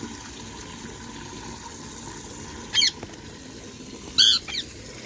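Pet parrot giving short, high-pitched calls over a steady background hiss: one about halfway through, another near the end followed quickly by a shorter one.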